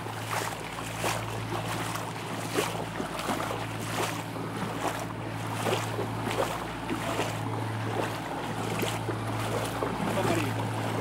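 Floodwater sloshing and lapping over a flooded road, with wind on the microphone and a steady low hum underneath.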